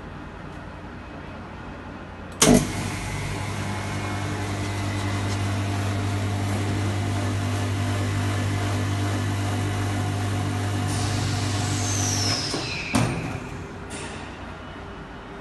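Chamber vacuum packing machine running a cycle. The lid shuts with a sharp bang about two seconds in, then the vacuum pump runs with a steady hum for about ten seconds as it pulls down the chamber. Near the end there is a falling whistle, the pump cuts off, and a clunk and a short hiss follow.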